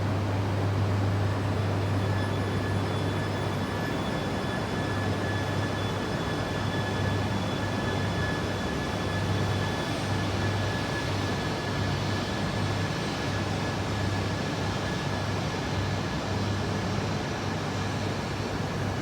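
Shinkansen train noise: a steady rumble with an even, high-pitched whine.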